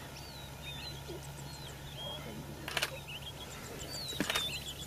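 Small birds chirping and whistling in the background over a low steady hum, with two short sharp knocks, one a little before three seconds in and one near the end.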